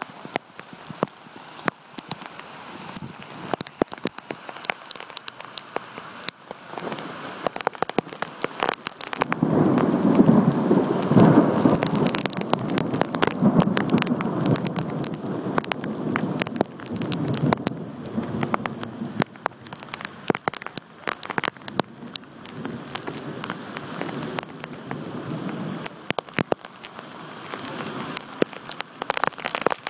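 Heavy monsoon rain, with drops spattering sharply close by. About a third of the way in, a long roll of thunder starts suddenly and fades away over some ten seconds.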